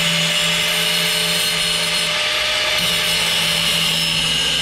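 Cordless angle grinder with a cut-off wheel running steadily under load as it cuts the sheet steel of a car's radiator support, with a high whine over a hiss.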